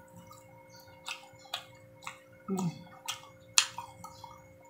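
Close-up chewing of a mouthful of pork barbecue: wet mouth clicks and smacks about twice a second.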